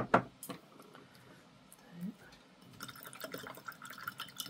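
A couple of sharp knocks at the start, then water splashing and dripping as a paintbrush is worked in a pot of water, turning into a quick patter of small splashes in the second half.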